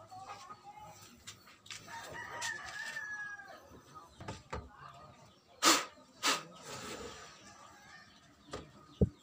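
A rooster crowing once, a long held call about two seconds in. A little past halfway come two loud, sharp knocks of hard gear being set down on a plywood box, as an audio mixer is placed on top of it, with one more knock near the end.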